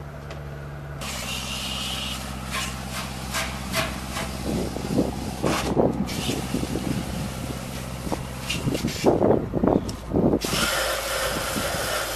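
Hissing spray, with scattered knocks and clatter, as an air conditioner's coil is sprayed clean.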